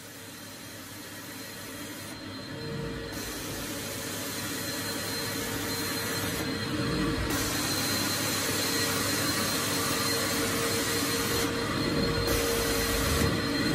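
Carpet extraction machine's vacuum motors running with a steady whine, suction hissing through the cleaning wand as it is drawn across the carpet. The sound grows steadily louder.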